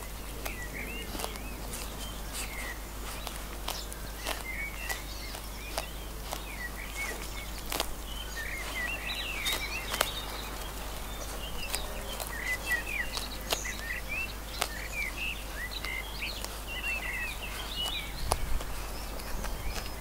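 A lamb grazing close by, tearing and chewing grass in a run of sharp, irregular clicks, over steady chirping of small birds.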